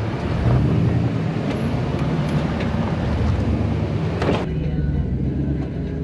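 4x4 engine running at crawling speed over rock, with tyres crunching and clicking on stone. About four and a half seconds in the sound changes abruptly: the hiss drops away and the lower engine drone carries on.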